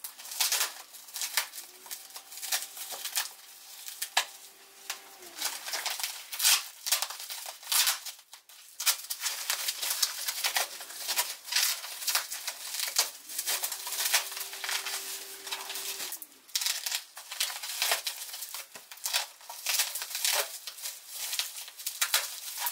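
Plastic film and bubble wrap crinkling and rustling in quick, irregular handfuls as a packed studio strobe is unwrapped.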